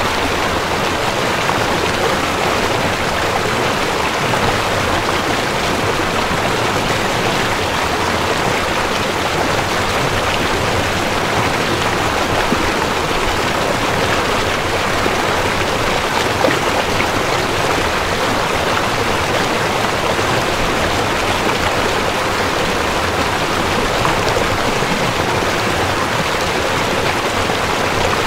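Steady rushing noise of water, even and unbroken, with no tones or rhythm.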